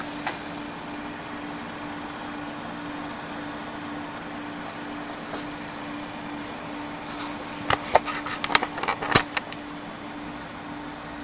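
A steady hum, with a quick run of sharp clicks and knocks about eight to nine seconds in.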